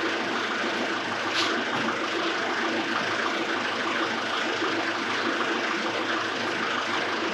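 Ford 1920 compact tractor's three-cylinder diesel engine idling steadily, with a single click about a second and a half in.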